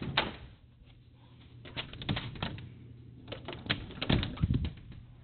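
Footsteps on wooden deck boards: an irregular run of short knocks, thicker about two and four seconds in.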